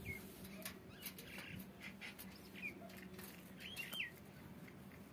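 Rose-ringed parakeet giving a few short, faint chirps, a pair of them close together near the end, with light clicks as it moves about. A steady low hum runs underneath.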